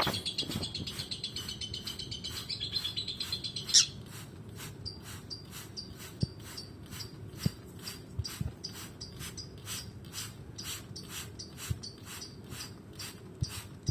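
Lovebirds chattering in high, busy twitters that stop with a sharp click about four seconds in, followed by faint, scattered short chirps. A steady, rapid ticking of about three a second runs underneath.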